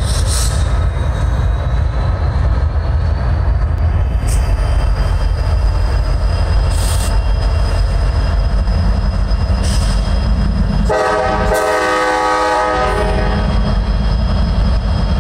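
CSX diesel-electric locomotives running as they move slowly past, a steady low engine rumble. About eleven seconds in, a locomotive air horn sounds once for about two seconds.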